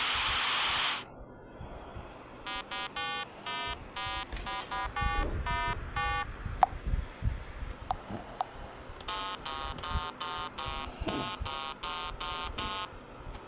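Retro 8-bit video-game style sound effects: a hiss of noise lasting about a second as the side dump trailer drops its load, then two runs of short electronic beeps at changing pitches, one starting about two and a half seconds in and another about nine seconds in.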